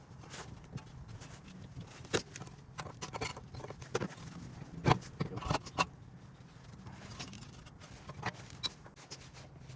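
Scattered metallic clicks, clinks and knocks of brake parts being handled, with the loudest knocks about midway, over a low steady hum.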